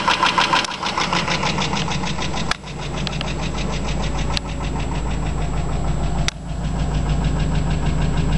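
Chrysler 300M's 3.5-litre V6 idling on a cold start with a fast, even ticking from the engine, which the owner suspects is a lifter or a spun bearing. About two and a half seconds in, the sound changes abruptly to a deeper steady drone, with the tick fainter.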